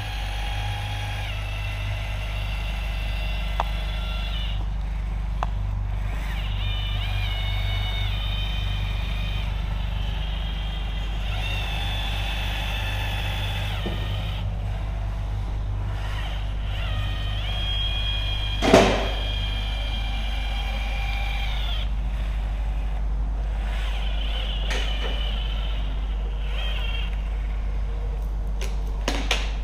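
Battery-powered urethane gun's motor whining in runs of a few seconds, pausing in between, as it squeezes a bead of urethane onto the glass. A steady low hum lies underneath, and there is one sharp knock about two-thirds of the way through.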